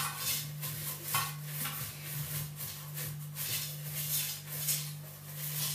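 Cloth rubbing and scrubbing inside an air fryer basket and over its grate in short irregular wiping strokes, about two a second, with a steady low hum underneath.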